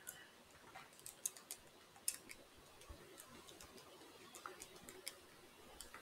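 Faint, light key clicks at an irregular pace, a few a second: a calculation being keyed in.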